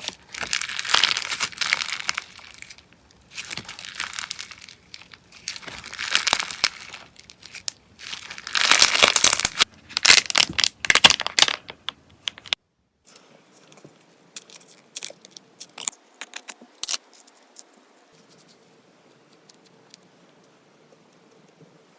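Slime being squeezed and pressed by hand in repeated bursts of about a second or two each, a crinkly, crackly sound. About twelve seconds in, this gives way to much quieter, scattered small clicks and pops.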